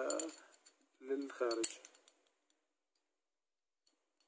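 Light metallic clicks and clinks of a stainless-steel pistol slide, barrel and recoil spring guide rod being fitted together by hand, mostly in the first two seconds alongside a man's speech, then only a few faint ticks.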